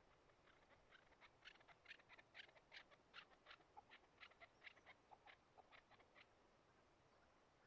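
Faint bird calls: a run of short, sharp notes at about three to four a second, lasting roughly six seconds before stopping.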